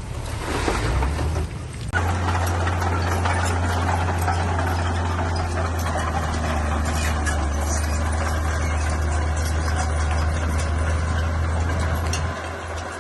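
Heavy diesel engine of earthmoving machinery running steadily at a constant pace. A rushing noise fills the first couple of seconds, then the engine comes in abruptly and holds until it drops away briefly near the end.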